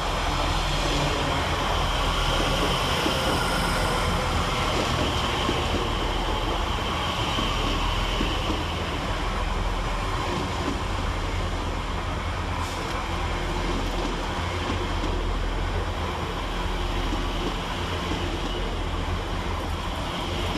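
Class 345 Elizabeth line electric multiple unit arriving and slowing into the platform: a steady rumble of wheels on rail, with a faint whine that falls in pitch over the first few seconds.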